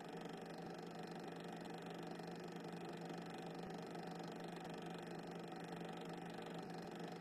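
Faint steady hiss with a constant low hum. There is no distinct event and nothing that rises or falls.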